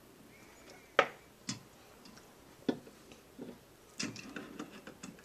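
Scattered light clicks and knocks of toy pieces being handled on a wooden train table, the sharpest about a second in and a small cluster near the end.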